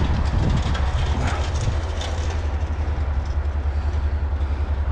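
Bobcat 763 skid steer's diesel engine running with a steady, low, fast-pulsing rumble, and a few light clicks within the first two seconds.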